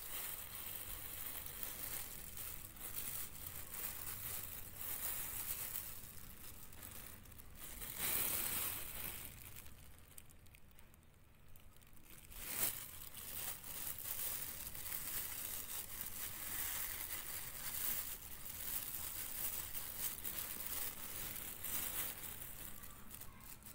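Mother cat licking and cleaning in the cloth-lined birthing box just after a kitten's birth: continuous close rasping and rustling against fabric. It swells about a third of the way in, with one sharp click a little past the middle.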